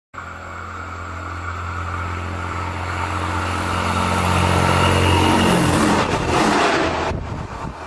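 Train running past, a steady hum with a hiss of running noise that grows louder for about five seconds, then fades.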